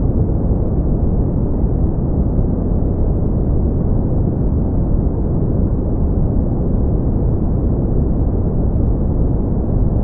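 Steady brown noise: an even, deep rumbling hiss with no treble, unchanging in level.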